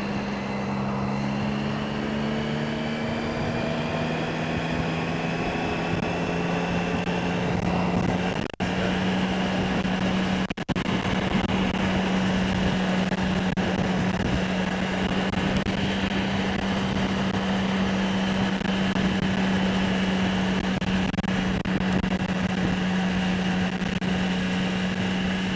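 2008 Triumph Speed Triple's 1050 cc three-cylinder engine running at expressway cruising speed under wind and road noise. The note climbs slowly for the first several seconds as the bike picks up speed, then holds steady. The sound drops out briefly twice about a third of the way in.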